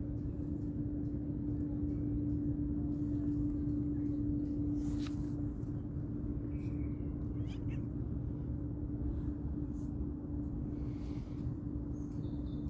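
Tabby kitten meowing a few times, short high calls, over a steady low hum.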